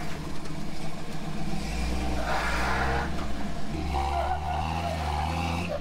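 Toyota FJ40 Land Cruiser's engine working under load as it crawls over rock ledges, the revs rising in two pushes, the second lasting until near the end.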